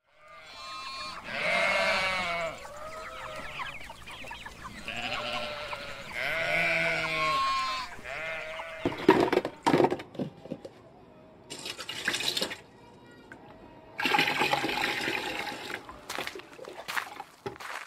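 A person retching and vomiting in long strained heaves, followed by splashes and a rush of water near the end.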